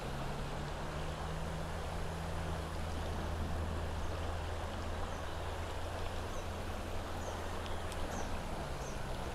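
River water rushing and churning over a shallow riffle, with a steady low hum underneath from about half a second in until near the end, and a few faint high chirps in the second half.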